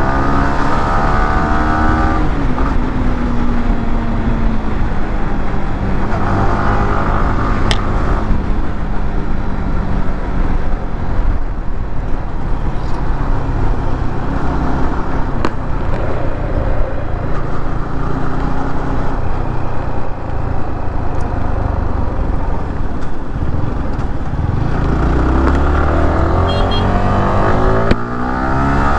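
Yamaha R15M's 155 cc single-cylinder engine running under way, its pitch rising and falling with the throttle and gear changes. It climbs in pitch again near the end, with a more even, noisy stretch in the middle.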